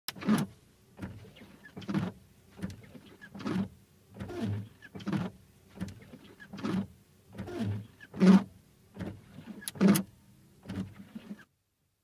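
Car windscreen wipers sweeping back and forth across the glass, a short rubbing stroke about every three-quarters of a second. They stop near the end.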